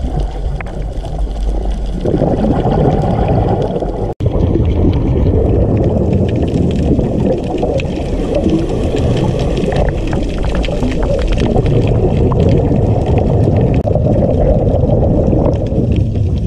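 Muffled underwater rumble and gurgling water noise picked up by an underwater camera, with faint crackling clicks. It drops out for an instant about four seconds in.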